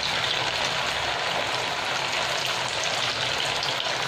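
Sabudana vada (sago and potato patties) deep-frying in very hot oil, freshly dropped in: a steady, dense sizzle and crackle of bubbling oil.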